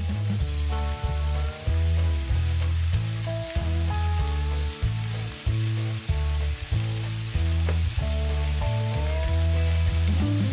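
Background music with a steady, rhythmic bass line, over the sizzle of diced red onion and red pepper frying in olive oil in a frying pan.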